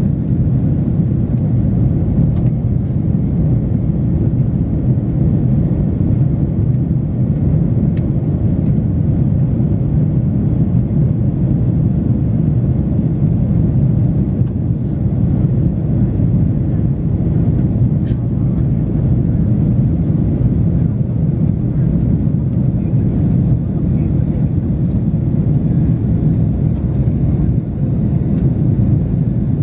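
Steady in-flight cabin noise of an Airbus A330-300: the low, even rumble of its General Electric CF6-80E1 turbofans and the rush of air past the fuselage, heard inside the passenger cabin.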